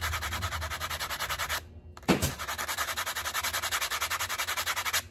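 Knife blade being honed on a strip of sanding belt wrapped on a board, in fast, even back-and-forth scraping strokes to keep an edge on it. The strokes stop briefly about a second and a half in, then resume with a sharp tap.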